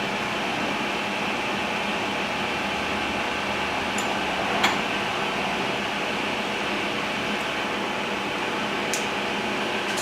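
Acer Ultima 3VK vertical knee mill running steadily with its table power feed engaged, a smooth, even hum. A few light clicks sound through it, the sharpest about halfway.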